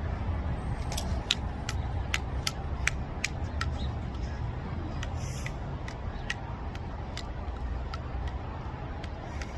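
Higgins Brothers devil stick being juggled: the hand sticks tap the centre stick in a quick run of clicks, about three a second, then a few scattered clicks, over a steady low rumble.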